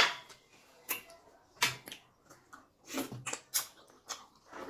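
Eating sounds: irregular sharp, wet clicks and smacks from people eating fufu and soup by hand, spaced unevenly, a little under a second apart.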